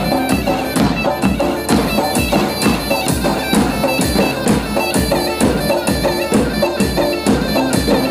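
Davul bass drum beaten in a steady dance rhythm under a loud, shrill wind-instrument melody: traditional folk dance music for a line dance.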